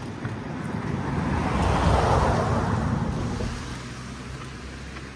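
A truck driving past on the road bridge, its engine and tyre noise swelling to a peak about two seconds in and then fading away.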